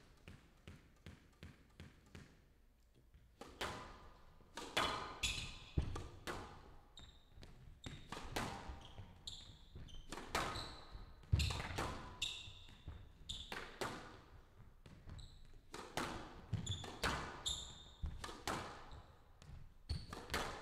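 Squash rally: the ball cracks sharply off rackets and the walls every second or so, with short high squeaks between the hits. It starts about three and a half seconds in, after a few light ball bounces.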